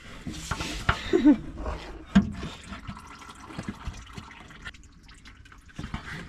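Automatic transmission fluid pouring out of the pan's drain plug hole into a catch pan, a steady splashing stream, with a couple of light knocks about one and two seconds in.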